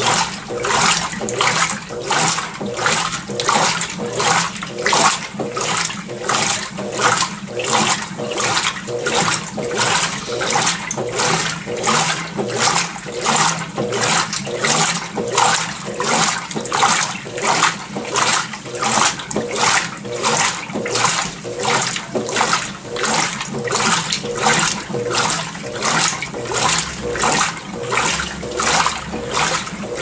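Consul CWL16 top-load washing machine agitating: the agitator churns water and clothes back and forth, giving an even swishing rhythm of about three strokes every two seconds over a faint steady motor hum.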